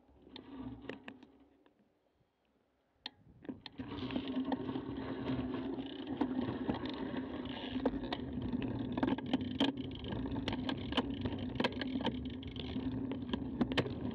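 Bicycle setting off from a stop: a few sharp clicks, then from about four seconds in a steady rolling hum from the tyres on the road, with frequent rattling ticks.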